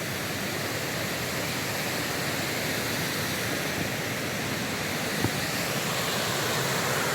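Waterfall rushing: a steady, even hiss of falling water that grows slightly louder toward the end, with one faint tick about five seconds in.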